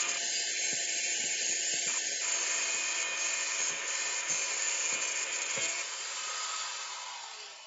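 Electric angle grinder cutting into a metal part clamped in a vise with an abrasive disc, a steady high grinding whine. Near the end the disc comes off the metal and the grinder winds down as it is switched off.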